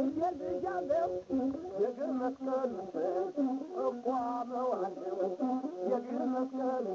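Ethiopian azmari music, with a masinko (single-string bowed fiddle) playing a sliding, ornamented melody.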